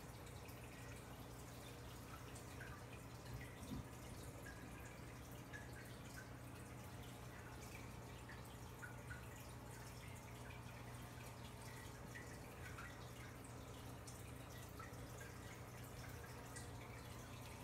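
Faint trickling and dripping of aquarium filter water, with small irregular drips over a steady low hum.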